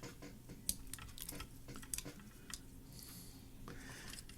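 Faint scattered clicks and a brief soft rustle of small parts and a piece of paper being handled by hand.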